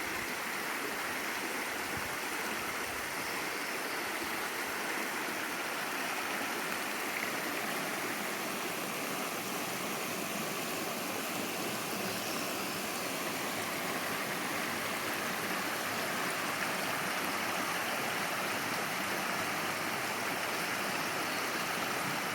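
Stream water running in a steady, unbroken rush.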